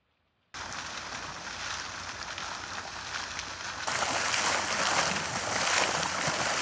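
A steady rushing hiss starts about half a second in and grows louder about four seconds in, where it is the spray of a tall garden fountain jet falling back into its pool.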